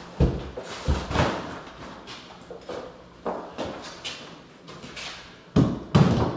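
Knocks and thuds of moving bags and cases being set down on a folding hand truck and a tile floor, with a plastic bag rustling. The two heaviest thumps come close together near the end.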